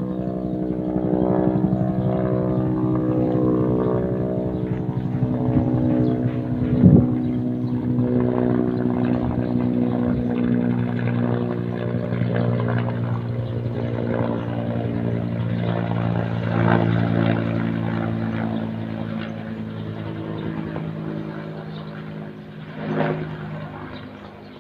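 Bell 205/214-series helicopter flying overhead, its two-blade main rotor making a steady, pitched beat that grows fainter near the end. A brief thump about seven seconds in.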